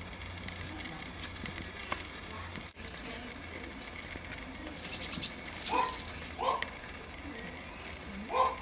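Short high animal cries, a pair around the middle and more near the end, over high rapid chirping from about three seconds in.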